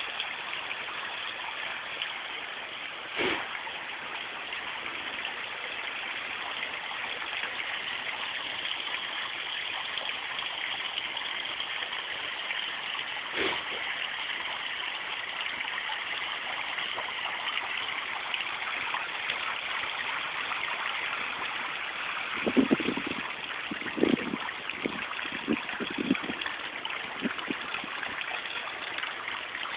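Garden pond waterfall running steadily over a rockery, a continuous splashing rush of water. A few short, louder low-pitched bursts break in near the end.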